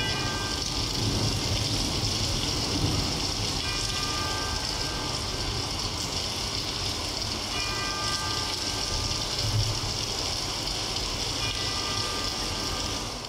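Steady rushing rain-like noise from a storm soundscape in the dance's backing track. A soft cluster of high sustained notes sounds about every four seconds over the noise.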